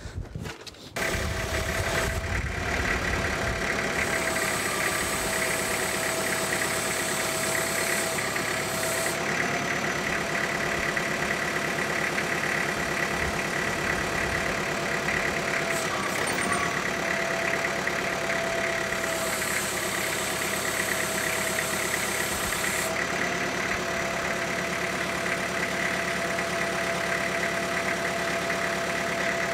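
Front-loader tractor's diesel engine starting about a second in, then running steadily with a thin whine as the tractor drives in and lifts a heavy load on its pallet forks.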